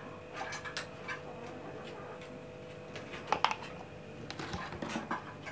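Faint clicks and light taps of a spoon against the bowl as black pepper powder is added to raw chicken pieces, the strongest tap about three and a half seconds in, over a faint steady hum.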